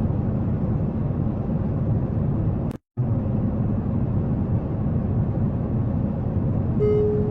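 Steady airliner cabin noise, a low rush of engines and airflow, which cuts out for a moment about three seconds in. A single steady electronic tone sounds near the end.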